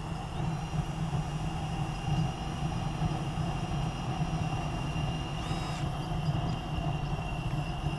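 Homemade turbojet engine running steadily: a constant high turbine whine over a low rumble and rushing exhaust.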